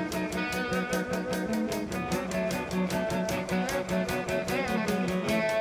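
Live rock band playing a fast boogie: an electric guitar plays a lead line with bent, gliding notes over a quick, even drum beat and bass.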